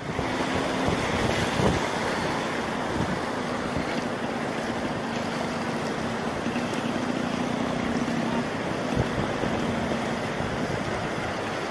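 Shallow surf washing over wet sand in a steady rush, with a faint steady low hum underneath and a couple of soft knocks.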